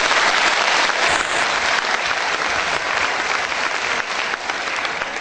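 Audience applauding, thinning out slowly toward the end.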